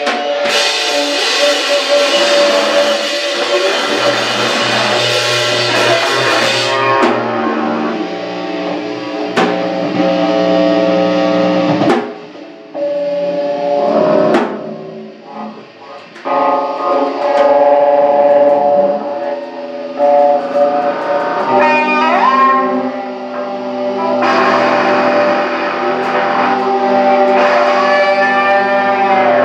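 A live rock band plays without vocals: guitar chords ring over a drum kit. The music drops to a quieter stretch about halfway through, then comes back, with guitar notes sliding in pitch later on.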